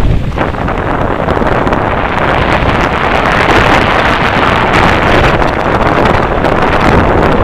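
Wind rushing over the microphone of a mountain bike descending a dirt singletrack at speed, mixed with tyre roll and the bike rattling over the rough trail. The noise is loud and steady.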